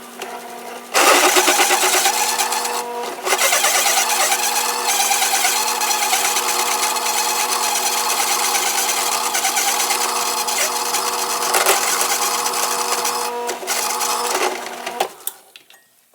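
Small, underpowered drill press boring a large hole in a steel backhoe bucket pin. A steady motor hum is joined about a second in by loud, rattling cutting noise from the bit biting into the steel. The noise eases briefly near three seconds, then runs on until it stops near the end.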